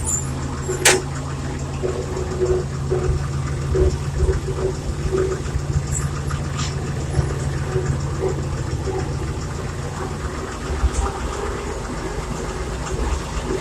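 Farm tractor engine running steadily while driving, with a sharp knock about a second in and light scattered rattling; the engine note changes near the end.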